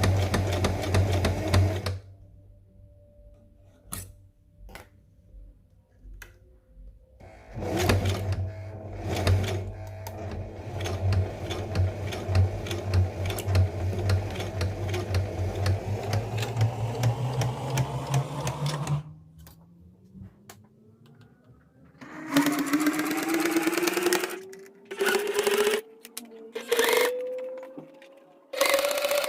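Domestic sewing machine stitching along the long edges of folded vinyl strips, running in stop-start bursts: a short run, a pause with a few clicks, a long run whose hum climbs in pitch just before it stops, then several short bursts near the end.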